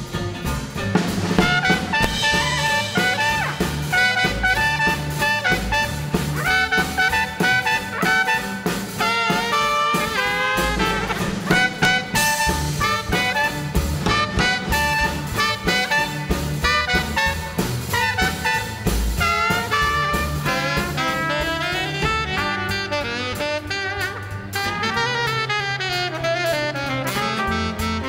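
Small swing jazz band playing live: a trumpet plays the lead over upright bass, drum kit and rhythm guitar, with saxophone in the band.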